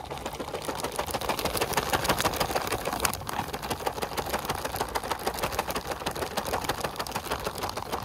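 Sealed plastic drink pouch shaken hard by hand: water sloshing inside with a fast, continuous crinkling of the pouch, as the lemon energy-drink powder is mixed in.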